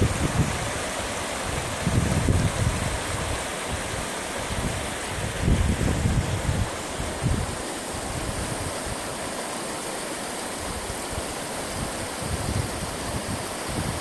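Paluxy River rushing over a shallow rocky riffle: a steady hiss of flowing water. Now and then a low rumble of wind buffets the microphone, about two seconds in, near the middle and near the end.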